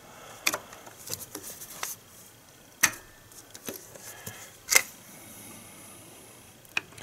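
Sharp metal clicks and clinks of channel-lock pliers gripping and wiggling a variable valve timing (VVT) solenoid loose from its bore in the engine, with two louder clicks a little under three and about five seconds in, then quieter handling.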